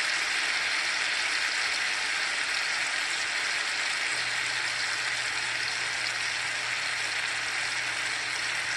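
T-bone steaks sizzling steadily in butter in a hot cast iron skillet, searing the outside of the meat.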